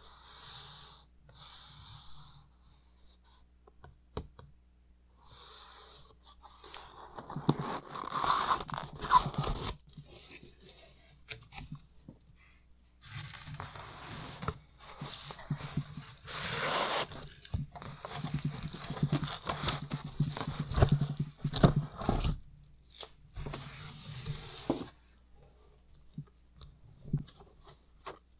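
Cardboard shipping box being opened by hand and a shrink-wrapped book slid out: irregular bursts of cardboard tearing, scraping and rustling, with a few sharp clicks, quieter towards the end.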